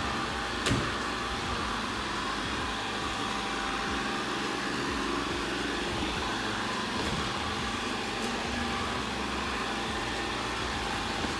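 Ecovacs Deebot N79W robot vacuum running in auto mode, a steady motor and brush noise as it moves about the floor, with a single sharp knock under a second in.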